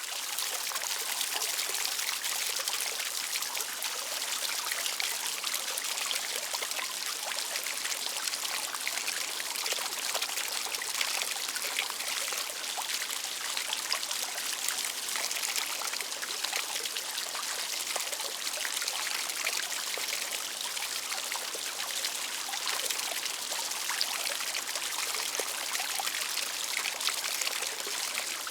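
Outdoor water fountain: water steadily pouring and splashing into a basin, a continuous bright patter of falling drops.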